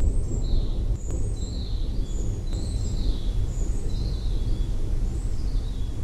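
Birds chirping repeatedly, short high calls that drop in pitch, over a steady low rumble of a storm.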